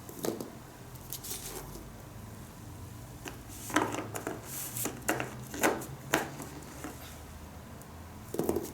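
Colouring crayons clicking and tapping against a table and each other as they are handled and scattered, in irregular light knocks that come thickest a few seconds in.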